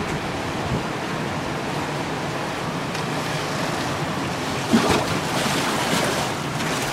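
Storm floodwater rushing through a street in hurricane wind, a steady loud wash that swells louder about five seconds in.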